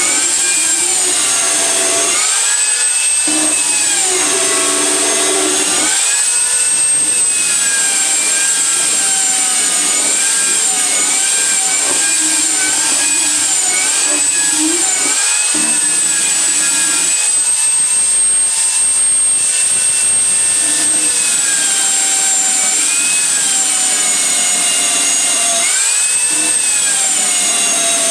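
Electric power sander running continuously with a high motor whine, its pitch sagging and recovering several times.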